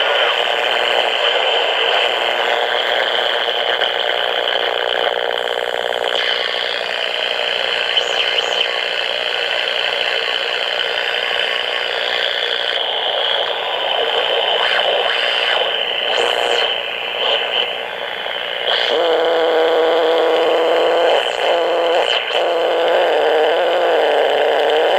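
A portable AM radio picking up a homemade blocking oscillator: harsh static and buzz with whining tones that jump and slide in pitch as the oscillator's potentiometer is turned. Near the end the whine drops into a lower, warbling tone.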